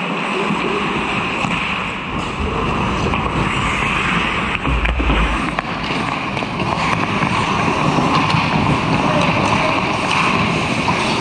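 Ice hockey play close to the goal: a steady scraping hiss of skate blades on the ice, with a few sharp clicks and low thumps about two and a half and five seconds in.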